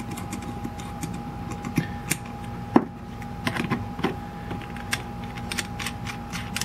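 Scattered small metallic clicks and taps from a carburetor being handled as its float-bowl hex nut is threaded in by hand and a socket on an extension is set against it, with one sharper click about three seconds in.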